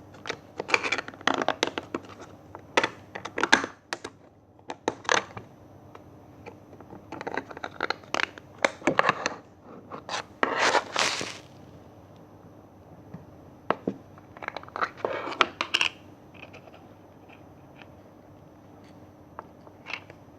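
Slime being squeezed and pressed by hand, giving bursts of irregular crackling clicks that thin out after about sixteen seconds.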